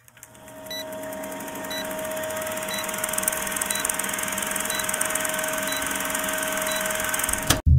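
Old-film countdown leader sound effect: a steady film-projector hiss with a constant hum and a short tick about once a second. It fades in at the start and cuts off suddenly near the end.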